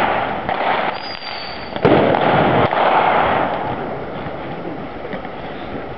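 Blank gunfire and pyrotechnic charges in a staged battle: a sharp, loud bang about two seconds in, followed by a long noisy tail, with a brief high whistle just before it.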